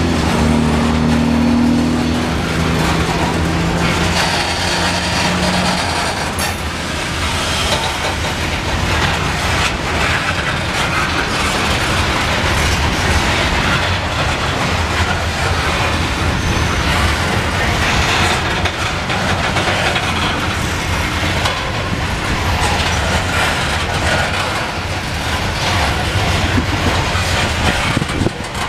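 Loaded coal hopper cars rolling past close by, with steel wheels rumbling and clicking over the rail joints. A low engine hum fades out within the first few seconds.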